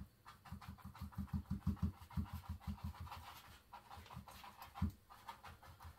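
Paintbrush dabbing paint onto a stretched canvas hung on a wall: a quick run of soft, dull thumps, about four or five a second. They thin out after the middle, with one louder thump near the end.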